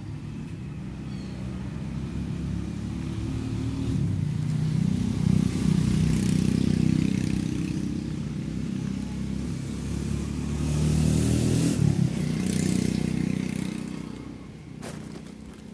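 Engine of a passing motor vehicle, swelling in and fading away twice as it goes by, its pitch bending as it passes.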